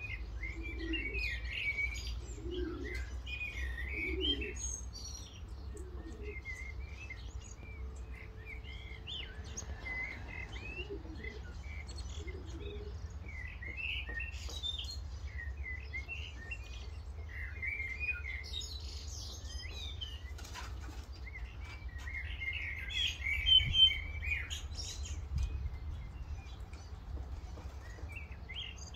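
Birds chirping and twittering over a steady low rumble, with low pigeon cooing in the first few seconds. A sudden flurry of wingbeats comes about three-quarters of the way through.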